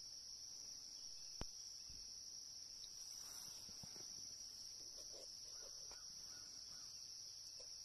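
Faint, steady high-pitched drone of an evening insect chorus, with one sharp click about a second and a half in.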